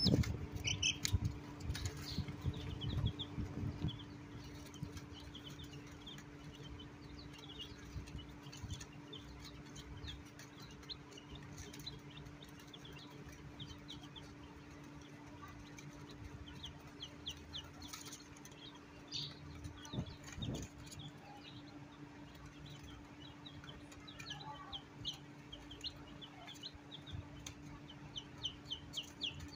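Newborn chicks peeping: many short, high chirps that fall in pitch, some in quick runs, going on all through. Under them is a steady low hum, with rustling and knocks in the first few seconds.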